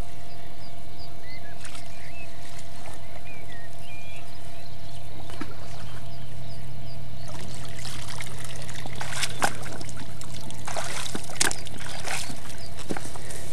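Water splashing and pouring out of a landing net as it is lifted from the shallows with a fish in it, in surges from about halfway through.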